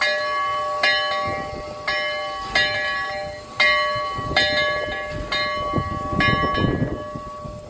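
Steam locomotive bell ringing as it swings, about eight strokes at an uneven pace of roughly one a second, each stroke ringing on under the next. A low rumbling noise comes in near the end.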